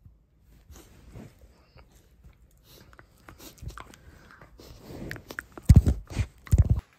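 A dog play-biting and mouthing a person's hand, with small clicks of teeth and rustling of fur and clothing. Near the end come a few loud thumps and scrapes as the dog's head presses against the microphone.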